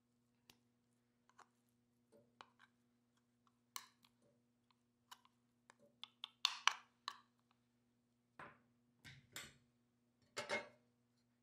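Scattered light clicks and knocks of kitchenware being handled over a hot plate, loudest in a cluster about six to seven seconds in, with a wire trivet set down on the plate near the end. A faint steady hum runs underneath.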